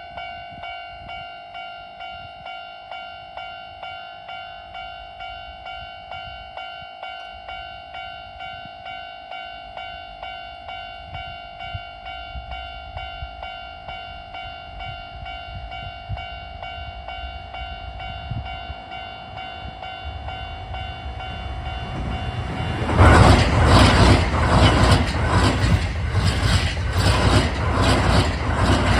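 Japanese level-crossing alarm ringing in an even, repeating pulse. A Toei 5500-series electric train approaches, growing louder, and in the last six seconds passes at speed with a rhythmic clatter of wheels over the rail joints that drowns out the bell.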